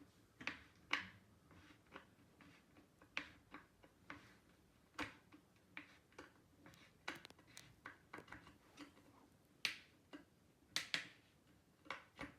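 Faint, irregular light clicks and taps of hands working the panels and fittings of a flat-pack engineered-wood nightstand during assembly.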